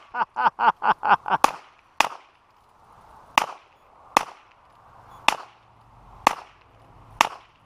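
A quick string of short voiced syllables, then single-action .22 revolver shots, about one a second, seven in all, each with a short echo.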